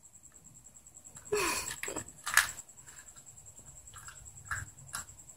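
A kitten playing with a toy on a tile floor: scattered sharp clicks and taps of claws and toy on the tiles, the loudest about halfway through. A brief pitched, voice-like sound with a falling tone comes a little over a second in.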